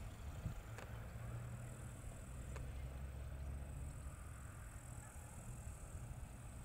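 Outdoor ambience: a steady low rumble that swells for a few seconds about a second in, with two faint clicks and a faint high steady hiss.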